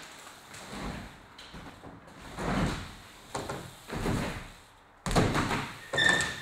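BMX bike riding wooden plywood ramps: the tyres rumble across the ramp surface in several swelling passes, then heavy hits on the wood about five and six seconds in, the second with a brief squeak.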